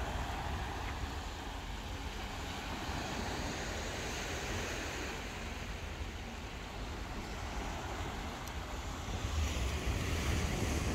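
Wind buffeting the microphone, a fluctuating low rumble, over a steady wash of outdoor noise.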